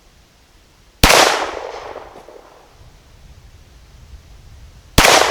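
Two shots from a Glock 17 9mm pistol, about four seconds apart, each with a long echo dying away.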